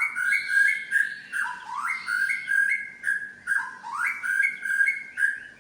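White-rumped shama (murai batu) singing a whistled phrase over and over, about four times: each time an upward slur, then quick alternating high and low notes. This is part of its repertoire of mimicked song.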